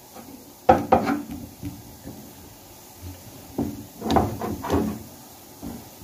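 Silicone spatula stirring a flour-and-ghee roux in a pan, knocking and scraping against the pan several times: the loudest knock about a second in, then a cluster of knocks near the two-thirds mark.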